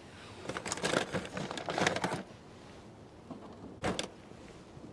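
Dense compressed coffee logs being handled and set down on a metal fire grate: a couple of seconds of scraping and rustling with small clicks, then a single sharp knock about four seconds in.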